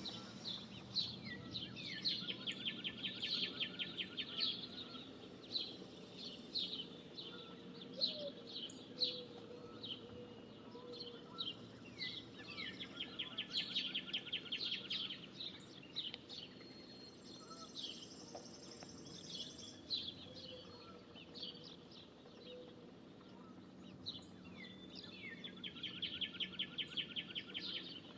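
Songbirds calling and chirping, with a rapid, dry trill of about two seconds heard three times: near the start, about midway and near the end. A steady low background rumble runs underneath.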